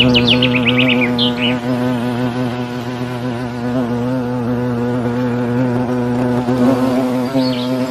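Steady, low buzzing like a swarm of insects, with quick bird chirps in the first second and a half and again near the end.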